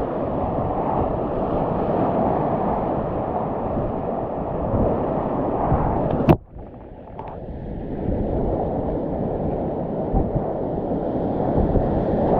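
Whitewater rapids rushing around a kayak, heard close up from the boat. About six seconds in a sharp click breaks it, followed by a much quieter second or two of small splashes before the rush of the rapids returns.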